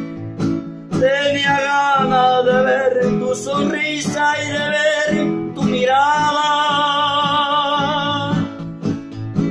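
A man singing a love song in Spanish while strumming a nylon-string classical guitar. He sings two long phrases with held notes, and the guitar carries on alone near the end.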